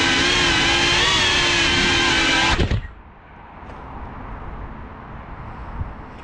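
FPV quadcopter motors and propellers whining at a fairly steady pitch that wavers a little, then stopping suddenly about two and a half seconds in as the quad sits landed. After that only a faint low rumble is left.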